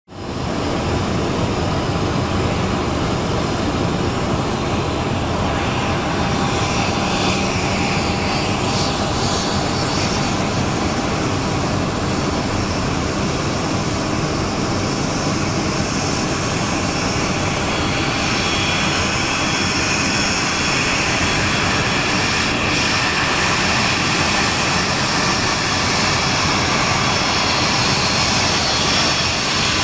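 Twin turbofan engines of a Cessna Citation XLS+ business jet running at taxi power as the jet rolls by: a steady jet rush with a high whine that grows stronger in the second half.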